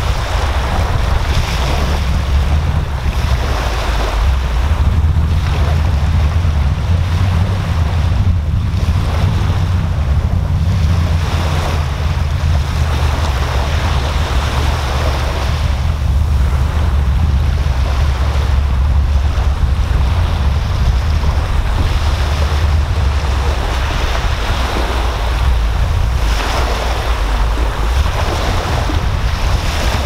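Small waves breaking and washing up a sandy beach, the hiss of the surf swelling and easing every few seconds. Under it runs a steady low rumble of wind buffeting the microphone.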